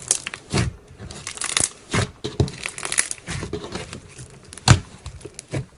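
Slime being pressed and worked by hand, giving irregular sticky pops and crackles, with the sharpest pop a little before the end.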